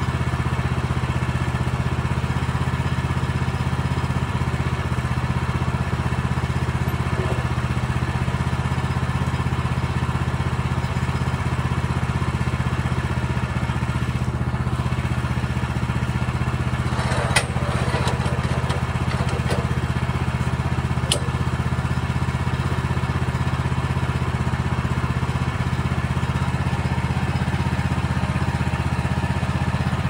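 The small gasoline engine on a Woodland Mills HM130MAX portable bandsaw mill running at a steady speed. A short metallic clatter comes a little past halfway.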